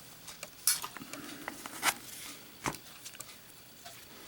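Faint handling noises of a Zippo lighter: a few sharp metallic clicks and light knocks, three of them standing out, among smaller ticks.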